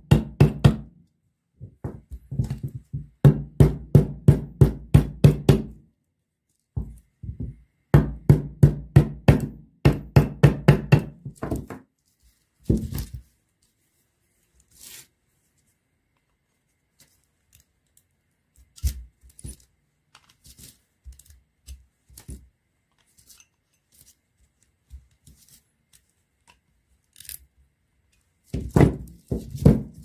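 Hammer blows on a chisel in quick runs of sharp metallic knocks, about four a second, cutting the burnt copper windings out of a refrigerator fan motor's stator. Between the runs come a long stretch of faint scattered clicks and scrapes.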